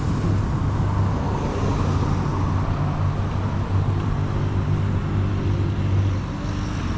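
A motor vehicle's engine running steadily with a low hum, over continuous road and wind noise.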